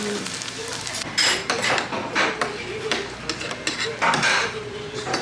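Cutlery clinking and scraping against dishes while eating, in a handful of short bursts; the loudest come about a second in and about four seconds in.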